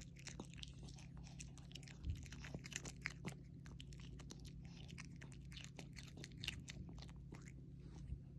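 A Maltese dog chewing and crunching food: a quick irregular run of small crisp crunches that stops about seven and a half seconds in, with a faint steady hum beneath.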